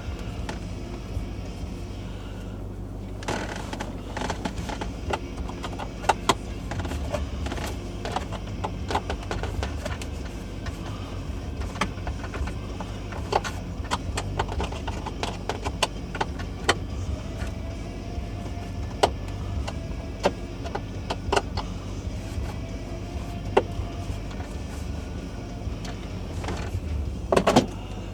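Scattered clicks, taps and knocks of a small flathead screwdriver and plastic parts being worked on by hand, with a cluster of louder knocks near the end, over a steady low hum.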